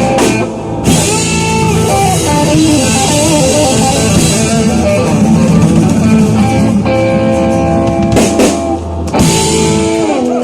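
Rock band playing live without vocals: electric guitar, bass and drum kit with cymbals. There is a brief break about nine seconds in, then held notes that slide down in pitch near the end.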